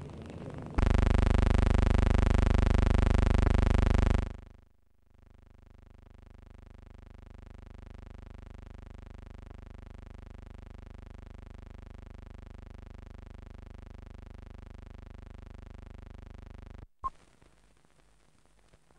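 A steady buzzing tone with many overtones. It comes in suddenly and loud about a second in, drops away after about three seconds, then goes on more quietly before cutting off abruptly near the end.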